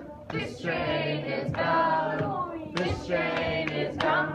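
A seventh-grade choir singing a song together, phrase by phrase, with short breaks between the phrases.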